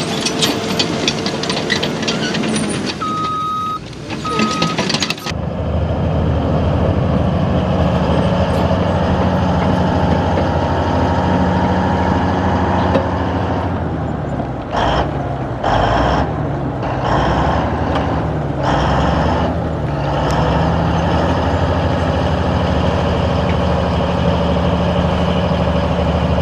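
Bulldozer at work with clanking and two short reversing beeps, then a different bulldozer's diesel engine running steadily under load, its pitch dipping and recovering a few times midway through.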